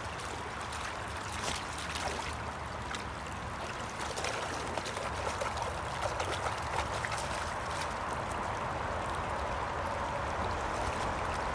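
River water running steadily, with a few faint clicks and ticks in the flow.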